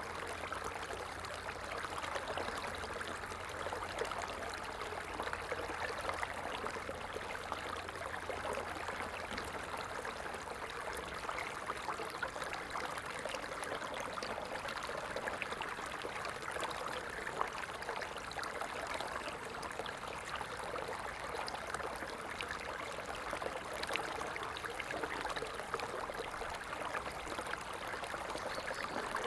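Small stream flowing, a steady rush and trickle of water.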